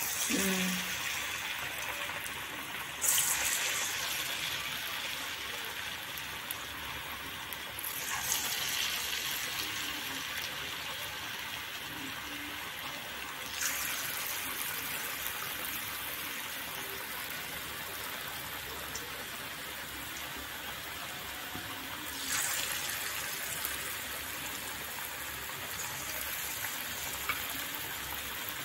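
Palm-fruit batter fritters deep-frying in hot oil in an aluminium kadai, a steady sizzle that jumps louder four times as more batter goes into the oil.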